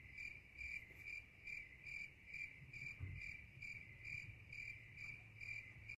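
Cricket chirping sound effect: faint, evenly spaced chirps at about three a second, cutting off abruptly at the end. It serves as the comic "awkward silence" cue.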